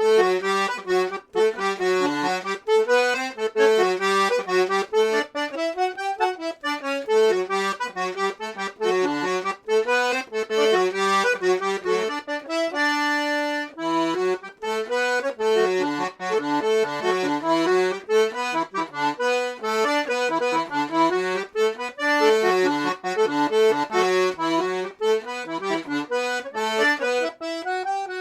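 Serenellini C#/D two-row button accordion with three-reed LMM treble playing a quick traditional tune on the treble side, with a short held chord about halfway through.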